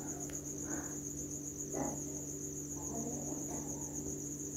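A steady, high, fast cricket-like trill over a faint low hum, with a few soft rustles of fabric being handled.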